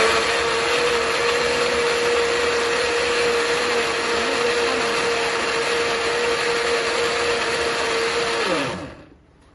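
Moulinex countertop blender running at one steady speed, blending a liquid mix of oil, sugar and vanilla, with a constant motor whine; near the end it is switched off and winds down with falling pitch to a stop.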